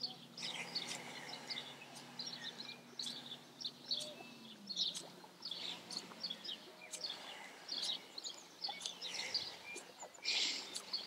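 Small birds chirping and twittering, many short high calls one after another. Under them a faint low steady hum drops slightly in pitch about four and a half seconds in.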